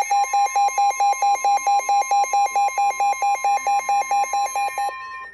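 Weather radio alert tones: a loud electronic alarm beeping rapidly, about five beeps a second, over a steady higher tone, both stopping near the end.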